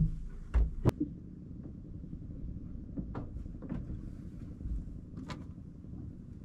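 Hollow knocks on a wooden boat's deck and hull as someone moves about and handles gear: three sharp ones within the first second, then a few faint taps, over a steady low rumble.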